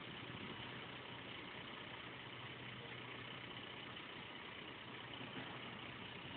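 Renault Premium 420 truck's diesel engine idling with a steady, even hum.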